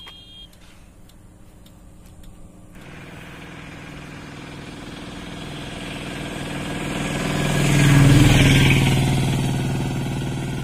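A motor vehicle passing close by on the road: engine hum and road noise grow steadily louder, peak about eight seconds in, then fade.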